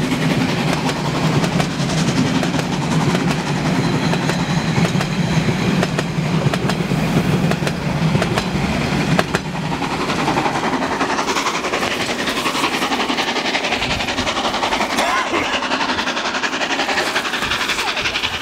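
Carriages of a narrow-gauge steam train rolling past close by, a loud rumble with wheels clicking over the rail joints. About nine seconds in the rumble drops away, leaving a thinner, steady noise as the train moves off.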